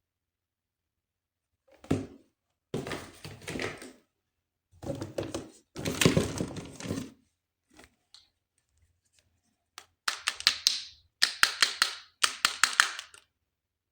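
Plastic toy and packaging handling during an unboxing. There is a thunk about two seconds in, then a few seconds of rustling and clattering. Near the end come three quick runs of sharp clicks.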